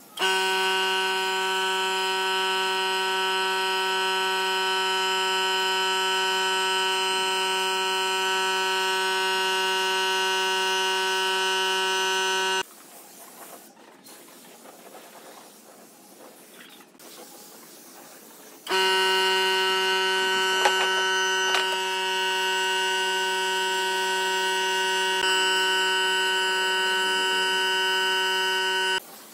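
Gravity-feed air spray gun spraying finish onto wood, a loud steady buzzing tone that starts and stops sharply with the trigger. Two long passes of about twelve and ten seconds, with a pause between them and a few faint clicks early in the second pass.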